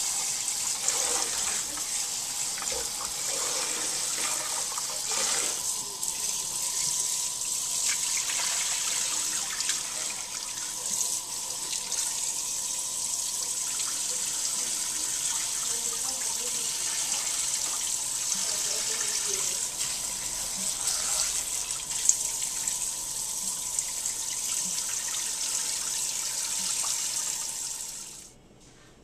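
Kitchen faucet running into a plastic bowl in the sink while a hand swishes shrimp around in the water to rinse them. The water cuts off suddenly near the end.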